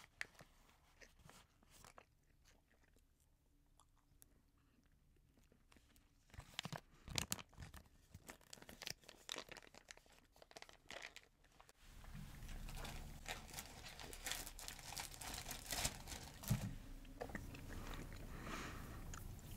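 Chewing gum close to a microphone: a few soft mouth clicks at first, then denser crunchy chewing from about six seconds in. The sound turns louder and more continuous about halfway through.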